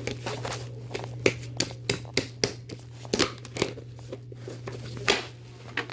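Irregular sharp crackles and crinkles, about a dozen, from something being handled and pulled apart by hand, over a steady low electrical hum.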